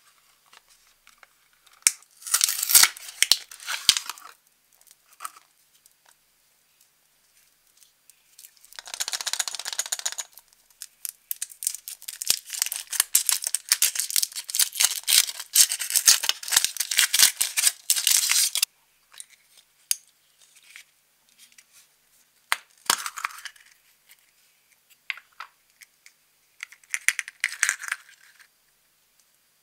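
Cardboard box of a Furuta chocolate egg being torn open, then a long stretch of crinkling foil as the wrapper is peeled off the chocolate egg, the loudest part. Near the end come clicks and rustling as the small plastic toy capsule and its paper insert are handled and opened.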